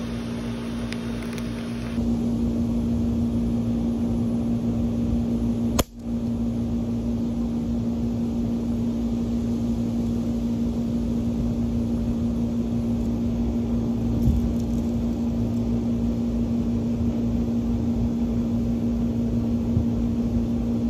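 Steady machine hum with one strong, even pitch over a low rumble. A single sharp click about six seconds in, after which the sound briefly drops away.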